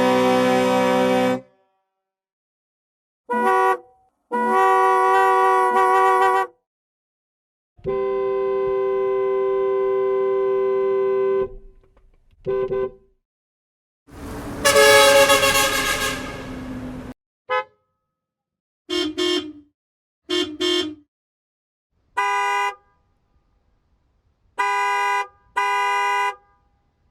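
A string of different car horns honking one after another, with silent gaps between them. Each horn has its own pitch and tone. There are long steady blasts of up to about four seconds and short toots, with two quick double toots near the end.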